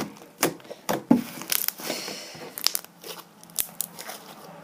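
Slime being poked and crunched by hand, giving a string of sharp pops and crackles at irregular intervals, most of them in the first two seconds.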